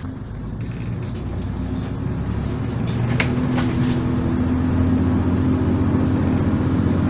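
Volvo Super Olympian double-decker bus engine running with a steady hum that grows louder over the first few seconds and then holds. A couple of sharp rattles come about three seconds in.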